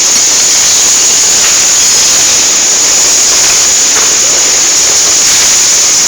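Loud, steady hiss with no pauses or distinct strikes, strongest in a high band.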